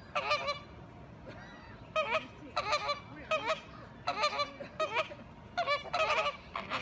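A group of flamingos honking: about ten short, loud, goose-like calls in quick irregular bouts, some overlapping, from birds standing with necks stretched upright.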